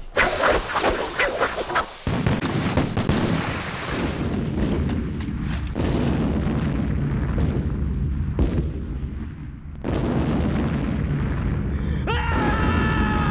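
War-film battle sound effects: a rapid string of gunshot cracks, then a sudden blast that runs on as a loud, continuous rumble of explosions, with another surge about ten seconds in. Near the end a man lets out a long scream.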